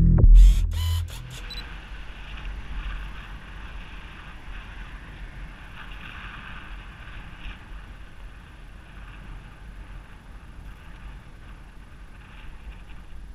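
A music sting ends with a few sharp clicks in the first second or so. Then there is steady wind and road rumble on the microphone of a moving rider's camera.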